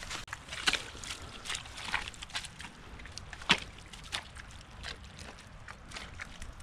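Footsteps sloshing and squelching through wet, muddy ground, irregular steps with one louder squelch about three and a half seconds in.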